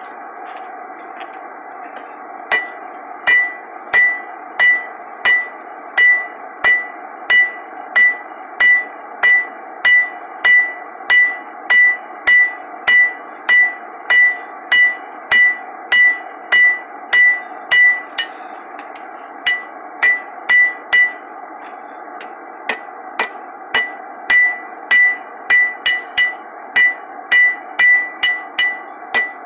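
Hand hammer striking a hot iron bar on an anvil in a steady rhythm of about one and a half blows a second, each blow ringing. The end of the bar is being drawn out into a taper. The blows stop briefly twice.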